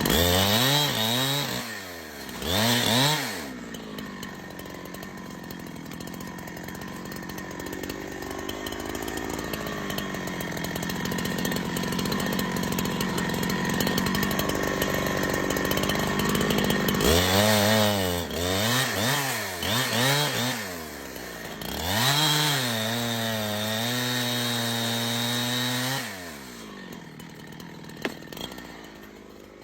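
Chainsaw engine revving up and down in bursts, then running steadily for long stretches, and revving again about two thirds of the way through. It holds a high steady pitch for a few seconds, then drops back and quietens near the end.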